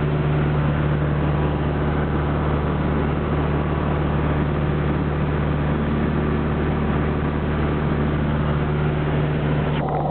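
Cabin sound of a PZL Koliber 150 light aircraft in cruise flight: its four-cylinder Lycoming piston engine and propeller drone steadily at constant power. The tone shifts abruptly just before the end.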